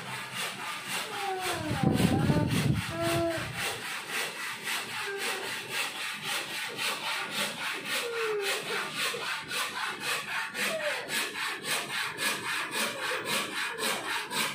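Hand saw cutting through a wooden board, back-and-forth strokes in a quick, even rhythm. A brief low rumble comes about two seconds in.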